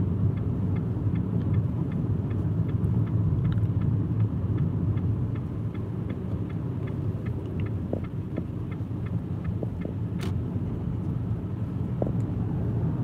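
Steady low rumble of a car driving at speed, heard from inside the cabin: engine and tyre noise on the road.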